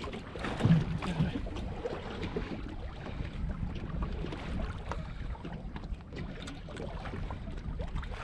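Steady wind and sea noise on a small open boat, with a couple of dull knocks about a second in.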